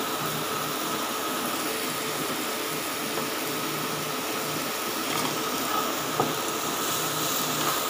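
Chicken and zucchini slices sizzling steadily on a grill plate over a portable gas stove.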